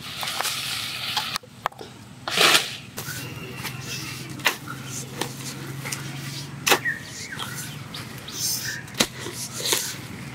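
Leafy stalks rustling as the yam plant is pulled, then a digging tool striking soil with several sharp knocks at irregular spacing, about one every two seconds, while an elephant foot yam tuber is dug out.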